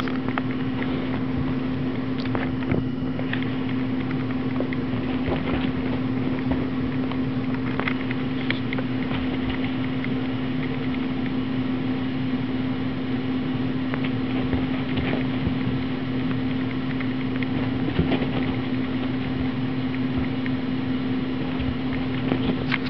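A steady mechanical hum with one constant low tone, unchanging throughout, with a few faint ticks scattered through it.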